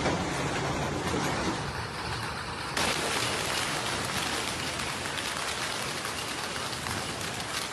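Heavy rain with storm wind, a dense steady hiss. About three seconds in it changes abruptly to a brighter, harsher hiss.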